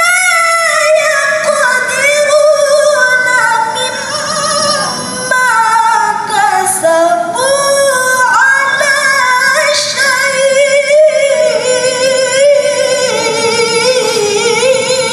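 A woman reciting the Quran in the melodic tilawah style, singing long, ornamented held phrases with a wavering pitch. Near the end the phrase falls step by step in pitch.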